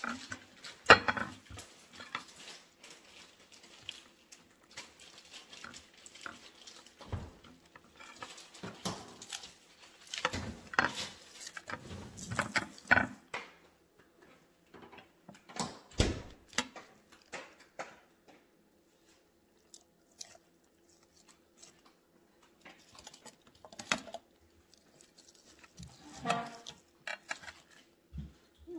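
Hands working a raw, marinated whole chicken, rubbing seasoning into the wet skin and stuffing the cavity: irregular wet patting and squelching, with a few louder knocks against the cutting board.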